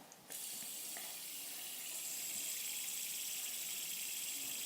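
Fidget spinner whirring close to the microphone: a steady high hiss with a faint whine in it, starting suddenly just after the start.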